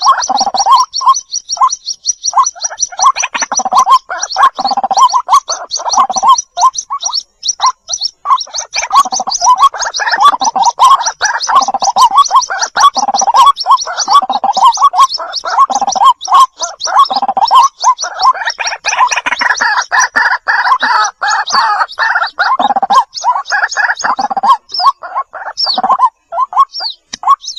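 White-breasted waterhen chicks calling for their mother: a fast, continuous run of high peeping notes over a lower, rapid chatter.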